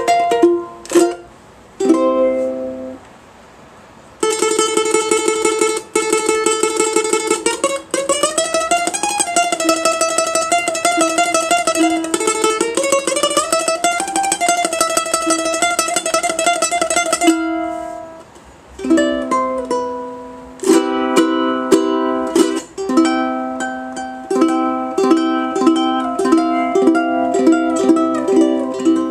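Kamaka HF-3 koa tenor ukulele played solo. A few chords, then a long passage of rapid, even strumming with notes sliding up the neck, a brief pause, and then a rhythmic strummed chord pattern.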